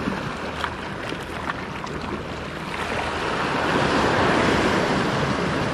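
Sea waves washing against the rocky shoreline, with wind on the microphone; the wash swells louder about halfway through as a wave surges in.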